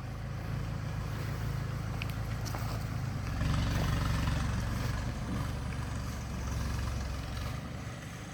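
Kubota MU5702 tractor's diesel engine running steadily. It gets louder about three seconds in, then eases off again.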